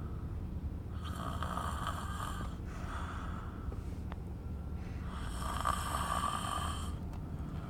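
A sleeper snoring: two long snoring breaths, one starting about a second in and one about five seconds in, over a steady low hum.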